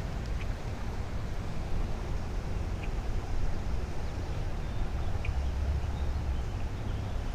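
Wind buffeting the microphone as a steady low rumble, with a few faint short high chirps now and then.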